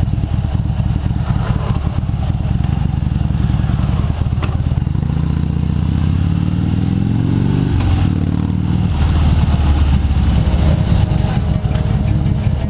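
Harley-Davidson motorcycle's V-twin engine running, revved up about five seconds in with a rising pitch that drops back just before eight seconds, then running louder again.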